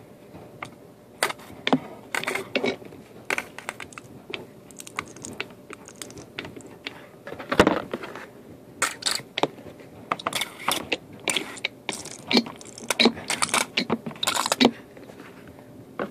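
Handling noises at a washing machine as detergent and laundry are loaded: irregular clicks, knocks and clatter of plastic and the machine's panels. The loudest knock comes about halfway through.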